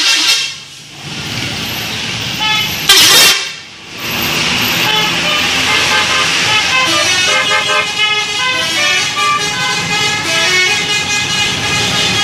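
Bus telolet horn playing a tune of short tones that change pitch in steps, from about five seconds in. Before it, two short, loud rushing bursts, one at the start and one about three seconds in.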